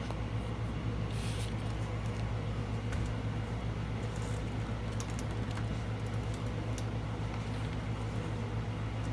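Air conditioner running with a steady low hum, with scattered light clicks and short rustles of small items being handled.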